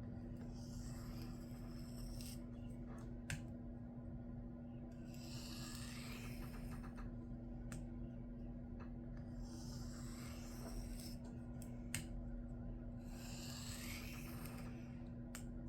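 A knife edge drawn very lightly across a sharpening stone, slightly above the sharpening angle, to clear a stubborn burr. The strokes come slowly, about one every four seconds, as a faint scraping hiss. A few sharp clicks fall between them, over a steady low hum.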